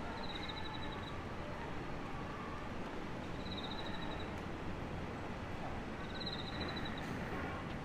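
Steady street ambience with a short, high, fast-pulsing trill heard three times, about three seconds apart.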